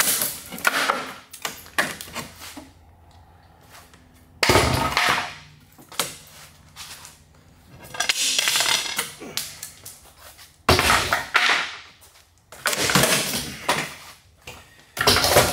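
Stapled pine shipping-crate sides being wrenched apart by hand: about six loud cracks and clatters of wood splitting away from the staples and boards knocking together, a few seconds apart.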